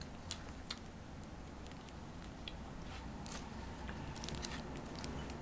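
Quiet handling of a plastic candy-drink pouch: scattered soft clicks and crinkles, with small sipping sounds through its straw in the second half.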